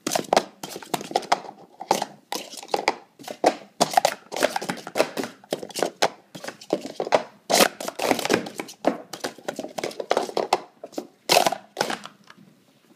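Plastic sport-stacking cups clattering in a fast, dense string of clacks as they are stacked up and brought down again in quick succession during a timed run of about twelve seconds. The clatter stops about a second before the end.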